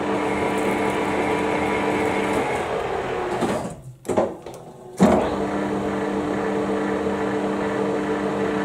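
Center lathe running with a steady motor and gearbox hum during an internal threading pass. About two and a half seconds in the spindle is braked and winds down to a stop, with a short clunk near four seconds. About five seconds in the motor starts again abruptly, running in reverse to back the threading tool out.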